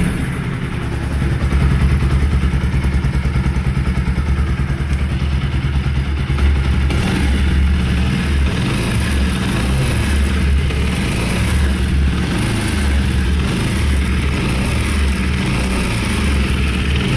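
Carbureted Bajaj Pulsar NS200's single-cylinder engine running at idle in neutral, a steady fast pulsing with a mechanical noise in it. The mechanic puts the noise down to a worn right-side crankshaft ball bearing, damaged internally.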